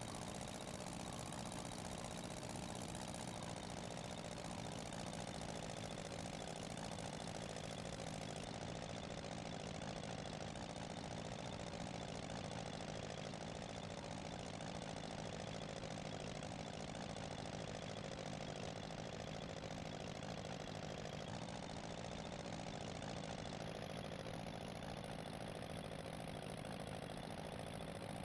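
An engine running steadily at a constant speed, with an even, unchanging drone.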